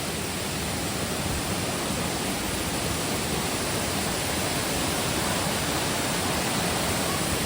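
Steady rush of running water, an even noise that doesn't change.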